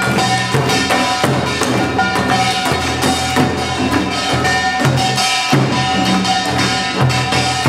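Korean samulnori percussion: buk barrel drums and sogo hand drums beating a steady, driving rhythm under the continuous metallic ringing and clanging of a kkwaenggwari small gong.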